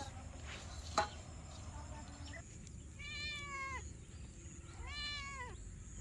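A domestic cat meowing twice, in two drawn-out meows that rise then fall in pitch, about two seconds apart in the second half. A single sharp click comes about a second in.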